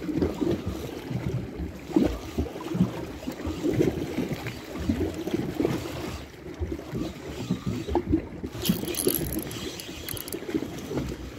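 Small waves lapping and sloshing unevenly at the shoreline, with a brief brighter hiss about nine seconds in.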